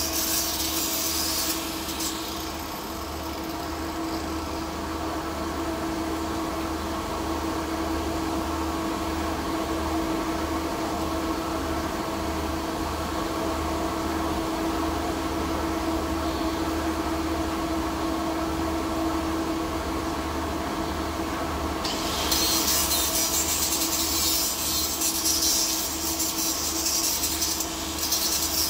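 Angle grinder grinding the weld joint of a P22 alloy-steel pipe, its motor running with a steady whine. The harsh rasp of the disc on the metal is strongest for the first second or two and again from about 22 seconds in, and lighter in between.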